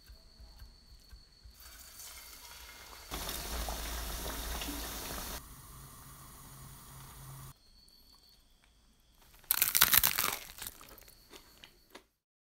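Kitchen cooking sounds in quick succession: light taps of a cleaver on a wooden board, a couple of seconds of steady sizzling hiss, then about a second of loud crisp crunching near the end.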